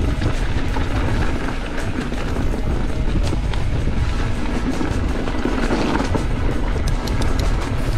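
Mountain bike rattling down a rough, dry trail at speed, with wind buffeting the microphone and a few sharp clicks near the end. Background music plays along.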